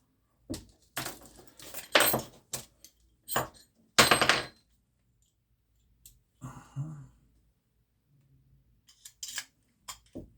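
Small metal parts and tools clinking and clattering as they are handled and set down on a workbench during an air pistol rebuild. The clinks come in a run of separate knocks, loudest about two and four seconds in, with quieter ones later.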